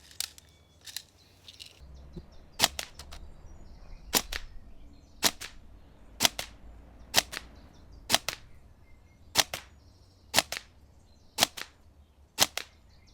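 Tokyo Marui Next Generation recoil electric airsoft gun firing single shots, about one a second, each a sharp crack.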